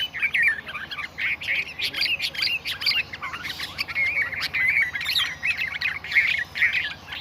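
Several birds chattering with quick, overlapping chirps and squawky calls that run on without a break.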